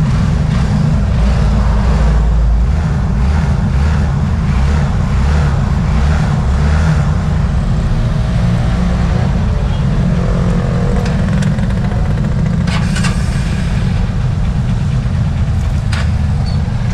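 Honda TMX Supremo's single-cylinder four-stroke engine running steadily, with a few sharp clicks about two-thirds of the way through.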